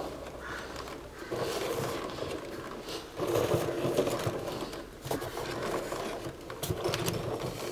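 Chicken eggs being rolled by hand on a plastic mesh in an incubator tray: light scraping and rustling, with small clicks of shells near the end.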